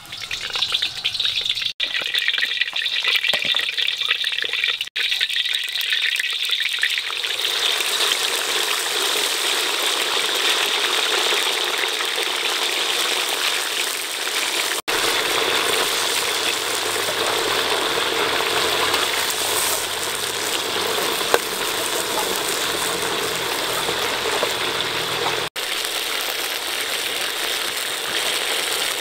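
Frog pieces deep-frying in hot oil in a wok: a loud, steady sizzle that grows fuller about seven seconds in, broken by a few very short dropouts.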